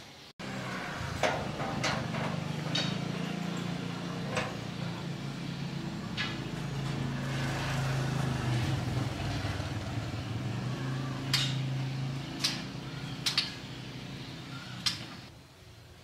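Sharp clicks and knocks, about nine scattered through, as a cloth-covered bird cage is unhooked from its hanger and handled, over a steady low hum.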